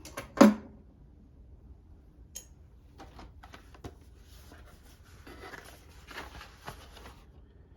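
A sharp knock about half a second in, then scattered light clicks and soft rustling as toilet tank lever parts are handled.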